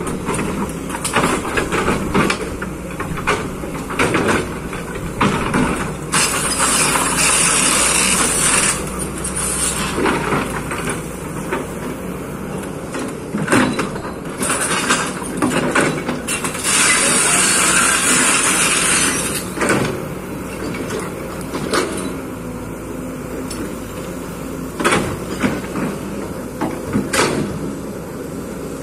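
Kobelco hydraulic excavator at work: its engine runs steadily under many short clanks and knocks. Twice, at about six seconds and about seventeen seconds in, a harsh hissing, scraping noise swells for two to three seconds.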